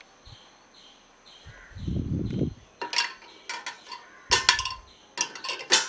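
Metal dishes and utensils clinking and knocking as they are handled in a dishwasher's bottom rack. About two seconds in there is a low rumble, then a string of sharp metallic clinks, some ringing briefly.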